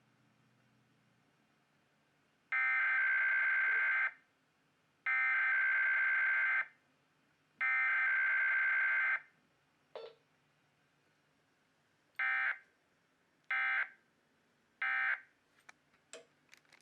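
EAS Endec sending SAME data bursts as it relays a required weekly test: three long bursts of warbling two-tone data (the header), then a click, then three short bursts (the end-of-message code). A few faint clicks follow near the end.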